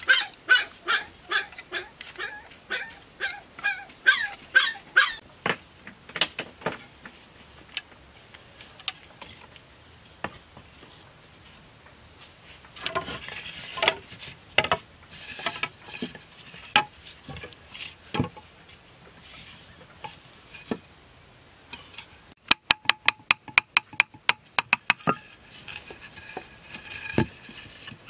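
A puppy yelping over and over, about three yelps a second, for the first five seconds. Then come scattered knocks of bamboo being chopped and struck, with a fast run of sharp taps, about six a second, a little before the end.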